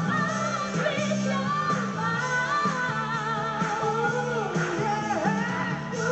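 Live pop song: a woman sings the melody with vibrato on held notes, over acoustic guitar and band accompaniment.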